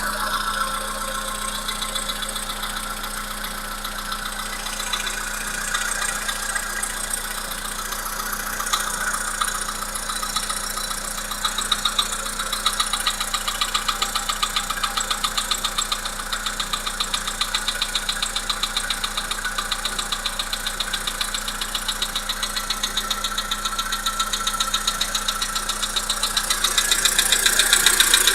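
Volkswagen Polo Sedan 1.6 CFNA petrol four-cylinder running with a rapid, even knock from the engine, becoming clearer about halfway through and a little louder near the end.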